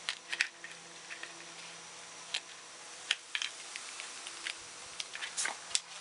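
Scattered short crackles and clicks of vinyl wrap film and a plastic door-handle piece being handled and pressed by hand, in irregular little clusters over a faint steady hiss.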